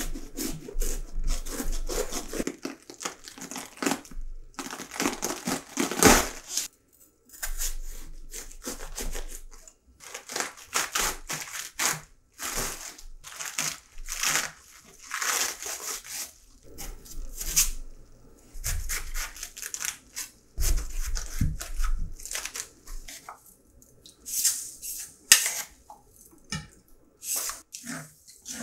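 Napa cabbage being cut with a knife and pulled apart by hand: irregular crisp crunching and tearing of the leaves and core, with a couple of sharp knocks.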